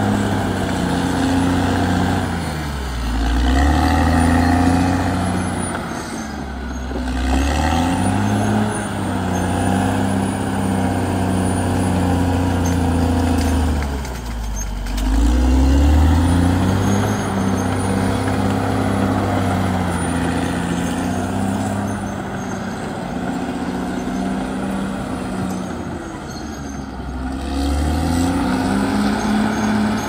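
Caterpillar D6R XL crawler bulldozer's diesel engine running under load as it pushes soil, its note sagging low and climbing back about four times.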